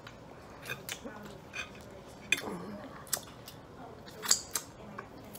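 Close-miked eating sounds: irregular wet lip smacks and chewing clicks from people eating sauced barbecue chicken wings, with sauce sucked off fingers and a louder smack about four seconds in.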